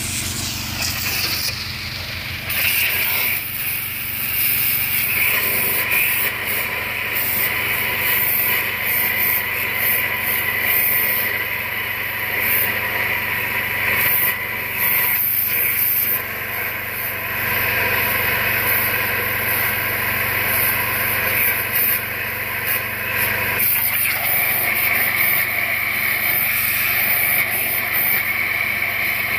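Pressure washer jet hissing steadily against a rusty cast-iron Mopar 383 big-block engine block, flushing out rust and corrosion loosened by electrolysis, over a steady motor hum.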